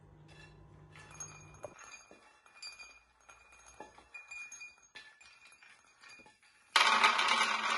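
Roasted hazelnuts poured from a frying pan into a small ceramic bowl and pushed along with a wooden spoon: scattered clinks with a brief ringing as nuts hit the bowl, then a loud dense rattle near the end as the bulk of the nuts slides in. A low steady hum from the hob comes first and stops after about a second and a half.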